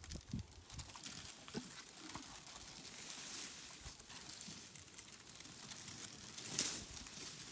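Irregular rustling and crackling with scattered soft thumps.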